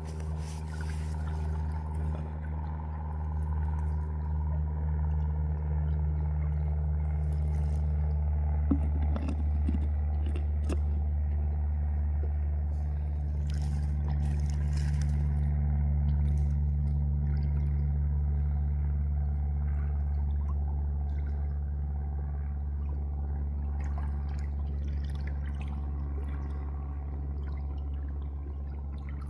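A motor running with a steady low hum, with water trickling and pouring over it and a few light clicks about a third of the way in.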